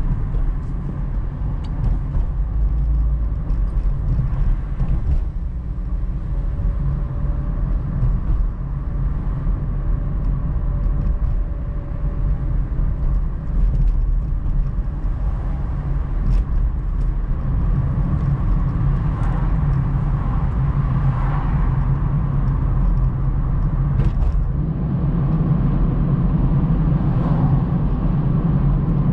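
A car being driven, heard from inside the cabin: a steady low rumble of engine and tyres on the road, with a few faint clicks.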